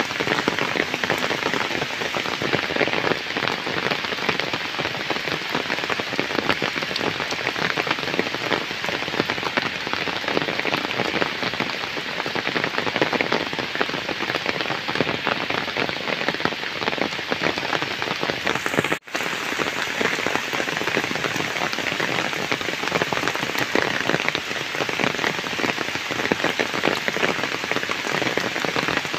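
Heavy rain pouring steadily onto flooded ground and standing water. There is a momentary dropout about two-thirds of the way through.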